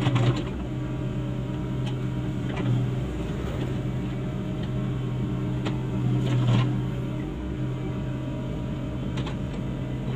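Komatsu PC75US-3 excavator's diesel engine running steadily, with a few short knocks and clanks over it.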